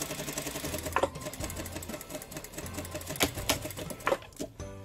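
Industrial sewing machine stitching a seam in cotton fabric, running in stretches with its motor hum coming and going, and a few sharp clicks along the way.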